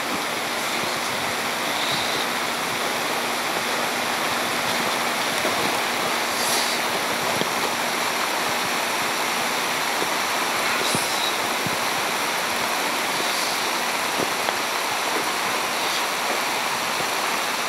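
Film rain machine spraying water from a tall rain stand: a steady hiss of artificial rain falling onto the ground.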